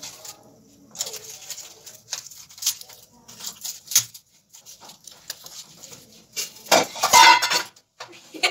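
Clinks and knocks of metal kitchenware, an aluminium pressure cooker and a steel plate being handled on a stove. A louder clattering burst comes about seven seconds in.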